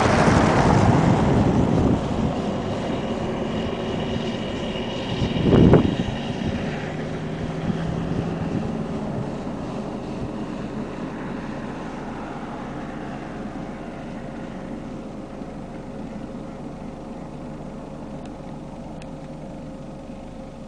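A motor vehicle running, loudest at the start and fading steadily away, with a brief loud rush about six seconds in.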